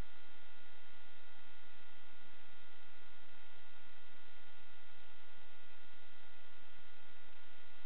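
Steady electronic hiss and hum with several constant high tones, unchanging throughout: the noise-only audio track of an analog FPV video recording.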